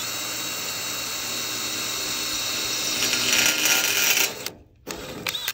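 Cordless drill with a twist bit running steadily as it drills a hole through a semi-truck's sheet-metal visor panel, its whine rising slightly before stopping about four and a half seconds in, with a brief second squeeze of the trigger near the end.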